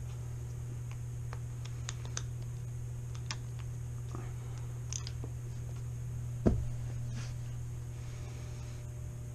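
Scattered light clicks and ticks of a T-wrench and small wheel nut being worked onto an RC truck's wheel hub, with one louder knock about six and a half seconds in. A steady low hum runs underneath.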